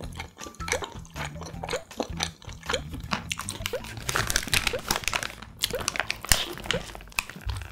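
Biting into and chewing a paper-wrapped toasted ham, egg and cheese sandwich: a dense run of crunchy clicks, with the paper wrapper crinkling.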